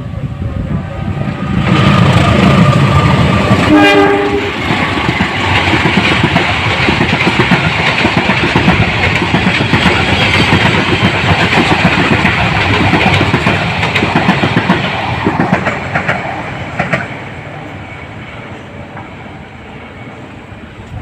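A train passing at speed, its wheels clattering along the rails, with a short horn note about four seconds in. The rolling noise holds for over ten seconds, then dies away.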